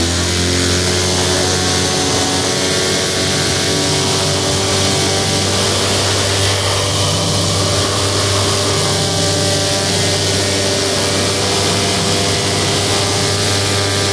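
Paramotor engine and propeller running steadily at full power through the takeoff run and climb, after revving up just before.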